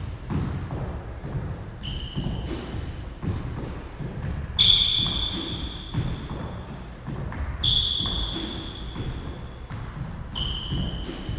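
Court shoes squeaking sharply on a hardwood squash court floor during lunges, four high squeaks about three seconds apart, the loudest near the middle, amid quick footfalls and thuds from fast footwork.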